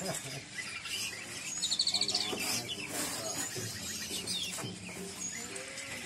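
Caged songbirds chirping and calling, short high notes scattered throughout, with one fast trill of about ten rapid notes just under two seconds in.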